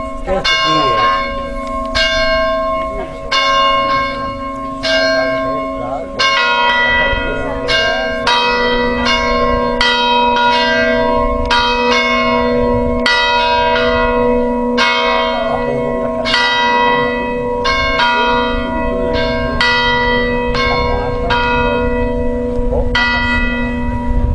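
Hand-rung peal of five church bells, the tenor in B, striking one after another with overlapping, long-ringing tones over a steady hum. The strokes come about once a second at first and quicken to about two a second from around six seconds in.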